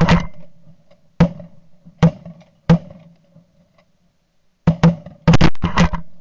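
Several shotguns firing at geese overhead. Single loud shots come about a second apart over the first three seconds, then after a short pause a quick string of about five shots near the end.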